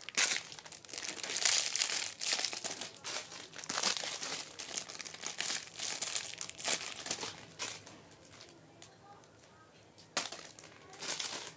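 Crinkly packaging rustling as it is handled, in dense bursts for most of the first eight seconds, then quieter, with one more short burst near the end.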